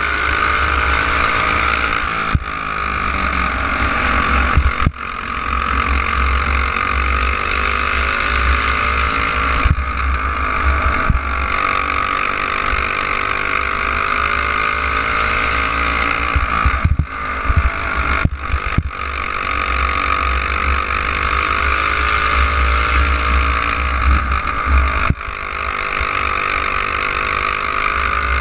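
Racing kart engine heard from onboard at speed, its pitch rising and falling as it runs around the oval, with a few brief drops in level. A heavy rumble of wind buffets the microphone underneath.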